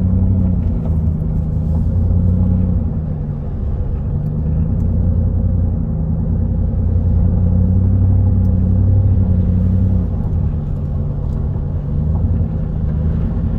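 Car driving, heard from inside the cabin: a steady low rumble of engine and road noise, with the engine's hum shifting up and down in pitch a few times.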